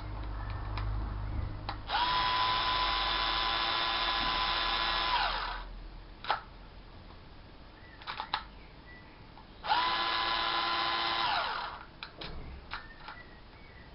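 Cordless drill/screwdriver motor running in two bursts: a steady whine of about three and a half seconds, then after a pause one of about two seconds, each spinning up quickly and winding down at the end. Sharp mechanical clicks come between and after the runs.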